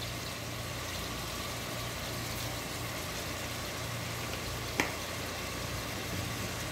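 A steady low mechanical hum with a hiss over it, with one sharp click a little before five seconds in.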